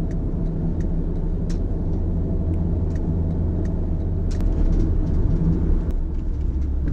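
Road and engine noise heard inside a moving car on an expressway: a steady low rumble, with faint ticks and clicks now and then.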